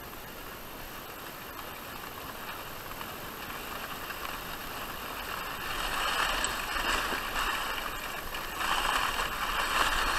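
Rushing, scraping noise of fast movement over packed snow, swelling about six seconds in and again near the end.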